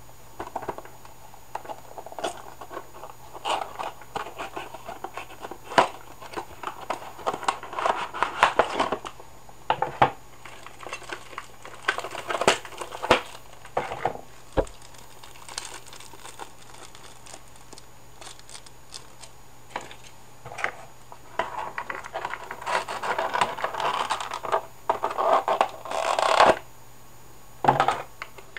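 Packaging of a 1:400 scale model airliner being handled and opened: irregular crinkling, rustling and tearing of plastic and cardboard, with sharp clicks and taps in between and quieter pauses.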